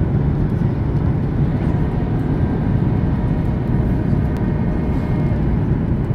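Cabin noise of a Ryanair Boeing 737-800 descending on approach with flaps extended: a steady, even rush of jet engines and airflow, heavy in the low end, with a faint steady whine above it.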